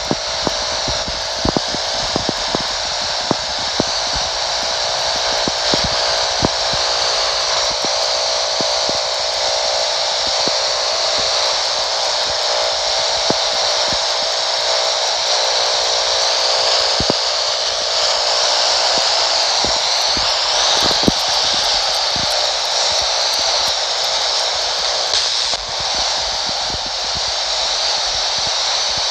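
Steady static hiss from the speaker of a Uniden PRO-401HH handheld CB radio receiving empty 27 MHz AM channels, with scattered crackles that are thicker in the first few seconds. It is plain band noise with no distant skip stations coming through, as the band is closed.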